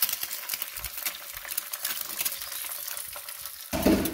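An egg frying in cold-pressed vegetable oil in a pan, a steady fine crackling sizzle of spitting oil. Near the end there is one short, louder bump.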